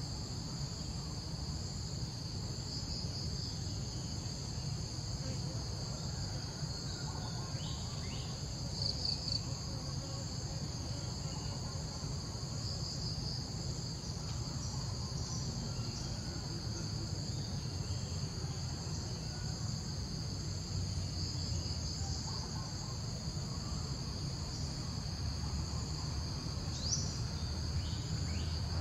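Steady, high-pitched chorus of insects droning without a break over a low steady rumble, with a few faint short chirps, one near the end.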